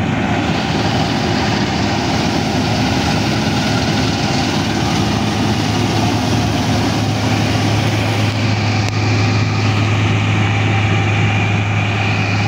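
New Holland 8070 combine harvester running as it cuts standing wheat: a loud, steady drone of engine and threshing machinery. A low hum in it grows stronger about four seconds in.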